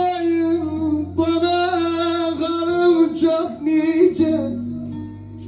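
Turkish folk song singing: a singer holds long, wavering vowel notes without words over a plucked string accompaniment. The sound fades down near the end.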